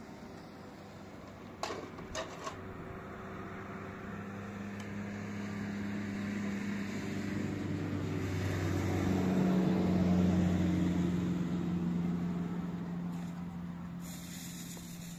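A motor vehicle's engine going past: a low hum that grows louder to a peak about ten seconds in and then fades, its pitch dropping slightly after the peak. A few sharp clicks about two seconds in.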